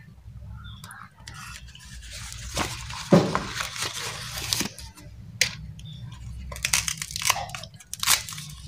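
Banana leaf rustling and crinkling as it is folded by hand around fish paste, in an irregular run of crackles, scrapes and short clicks.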